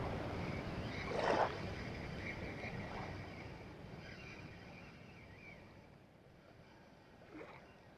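Small waves lapping at the shoreline, fading over a few seconds, with a short louder splash-like burst about a second in.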